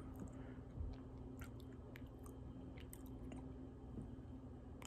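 Faint chewing of a chocolate-coated KitKat wafer, with a few soft, scattered mouth clicks.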